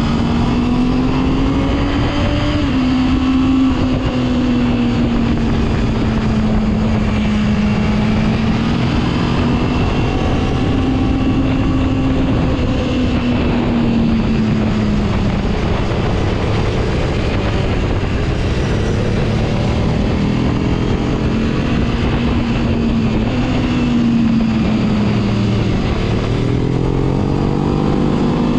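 Motorcycle engine at riding speed, heard from the rider's seat, its pitch rising and falling in long swells as the throttle is rolled on and off through curves.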